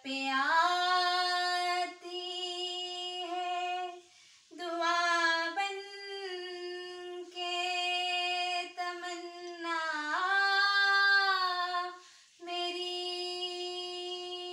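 A woman singing unaccompanied, holding long wordless notes in several phrases with short breaths between them.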